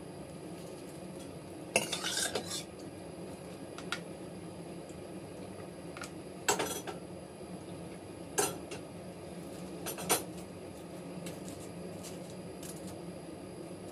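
Clinks and clatter of utensils against a stainless steel pot in four short bursts, as ube mixture is scooped from the pot and funnelled into plastic ice candy bags.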